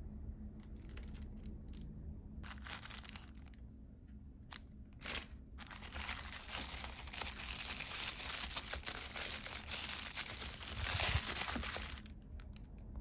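Plastic wrapping around a pair of sunglasses crinkling as it is handled inside their case. A few short rustles come first, then a long unbroken stretch of crinkling from about halfway in until shortly before the end.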